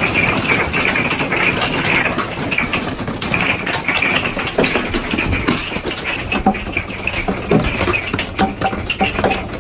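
Hailstones pelting the roof of a travel trailer, heard from inside: a dense clatter of many sharp hits over a steady rushing noise.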